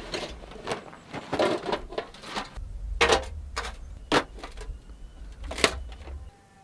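Irregular clicks and knocks of objects being handled, with three sharper knocks in the second half over a low rumble.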